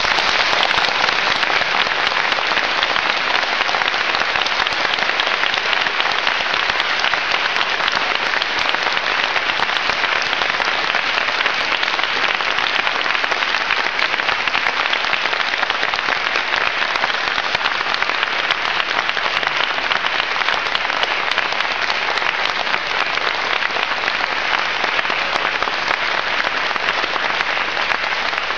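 A large audience in a hall applauding a speaker's remark: a long, steady round of many hands clapping together, tailing off at the very end.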